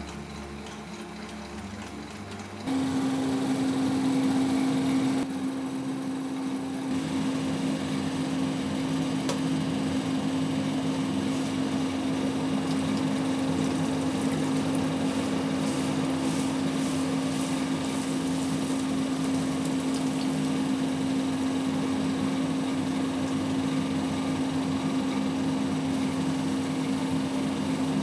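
Electric motor of a tofu-processing machine switching on about three seconds in and then running with a steady hum.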